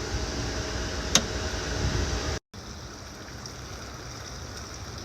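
Steady rush of running water, with a sharp click about a second in. The sound drops out abruptly about two and a half seconds in and comes back as a quieter, even rush of water.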